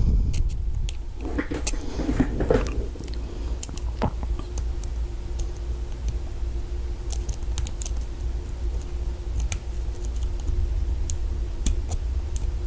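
Lock pick and tension wrench working the pins inside an Abus 34/55 padlock's cylinder: scattered light clicks and a little scraping, over a steady low hum.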